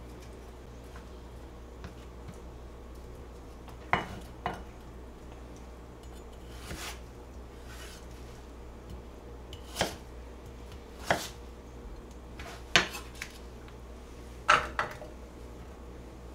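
Kitchen knife slicing Korean radish on a cutting board: a slow, uneven series of sharp knocks, about ten in all, with gaps of a second or more between cuts.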